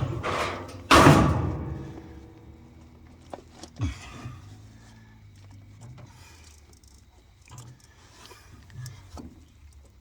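Two loud bangs, one right at the start and one about a second in, each ringing briefly, then a few light knocks: parts and tools being handled while fitting the boiler's pump piping.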